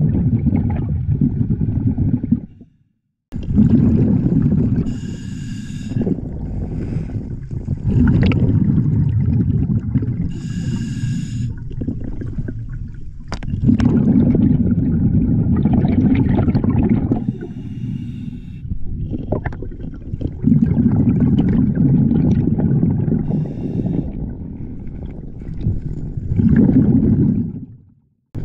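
A scuba diver breathing underwater through an Apeks regulator. Bubbling exhalations come in bursts of a few seconds, about every five to six seconds, and between them a short high hiss as air is drawn through the regulator.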